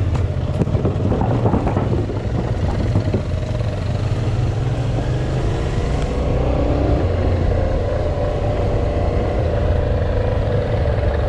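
Suzuki V-Strom 650's V-twin engine running steadily as the motorcycle rides along, with a clatter of wooden bridge planks under the tyres in the first three seconds.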